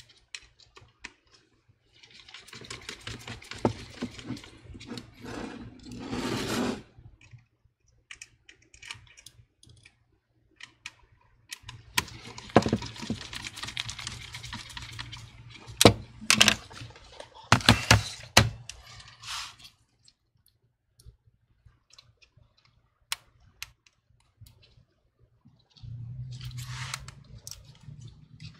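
Small sharp clicks and scratchy scraping of a precision screwdriver turning tiny screws and of gloved hands handling laptop parts, in two spells of a few seconds each, over a faint low hum.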